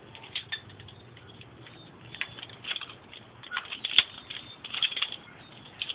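Dogs sniffing and scuffling at close range over a toad on concrete: a run of short, irregular snuffles and scrapes, busiest in the second half, with one sharp loud crackle about four seconds in.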